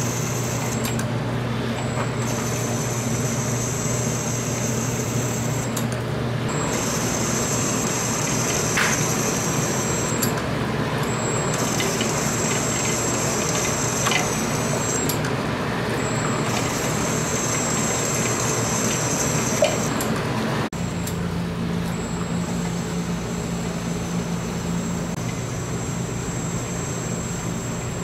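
Motorized persimmon-peeling machine running: a persimmon spins on its spindle while a blade shaves off the peel. A steady mechanical noise with a low hum, and a thin high whine that stops briefly every few seconds.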